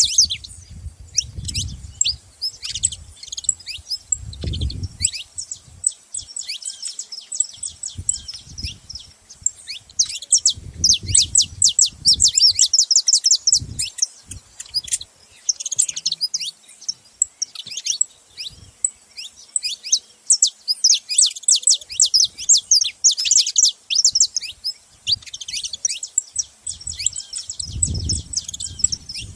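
Several saffron finches (canário-da-terra) chirping together, with many quick, high, downward-sweeping notes overlapping without pause. Low rumbles come and go underneath.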